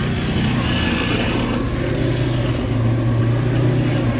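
Car engine running steadily with an even low hum, the sound of a car creeping through deep snow.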